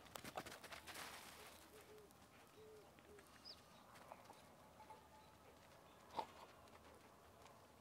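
Faint outdoor quiet: a foil-lined spice packet crinkling and rustling in the first second or so, then a bird calling softly a few times and a brief high chirp, and one sharp tap about six seconds in.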